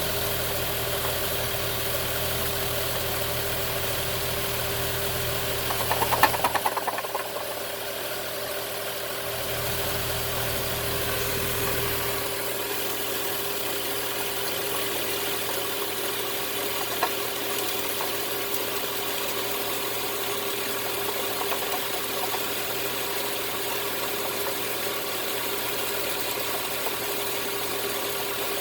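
2010 Nissan Maxima's A/C compressor running with the engine on: a steady mechanical noise with one constant tone, and a brief louder rattle about six seconds in. The car has no A/C, and the owner is unsure whether the noise means a bad compressor or a bad compressor clutch.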